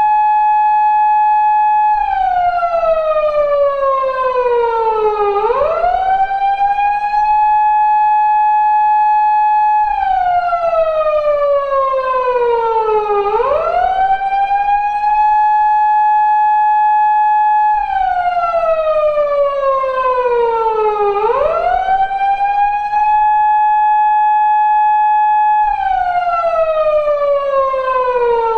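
Recreated Japanese police-car siren of the 2000s type used on 170- and 180-series Toyota Crown patrol cars, wailing in a slow 8-second cycle. Each cycle is a quick rise, a steady high note held about four seconds, and then a long slow fall in pitch. The cycle repeats three times, with a fourth fall starting near the end.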